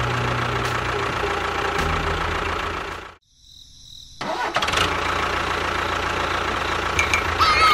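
Small electric motor of a DIY model tractor running with a steady hum. It cuts out about three seconds in and starts again about a second later.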